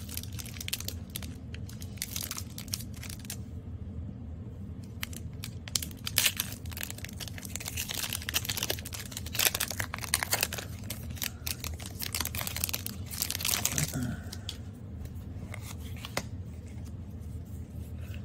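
Foil wrapper of a Pokémon trading card booster pack crinkling and tearing open, with sharp crackles. About fourteen seconds in it turns to quieter rustling as the cards are handled.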